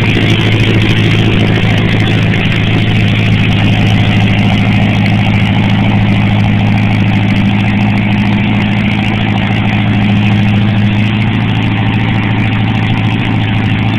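Volkswagen-based air-cooled flat-four aircraft engine running steadily on a ground test run, a constant drone with no big change in speed.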